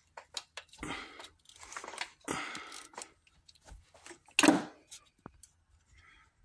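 Hand tools working on the balance-shaft fasteners at the timing side of a VW EA888 2.0 TSI engine, giving short metallic clicks and rasping scrapes. The loudest is a rasp about four and a half seconds in.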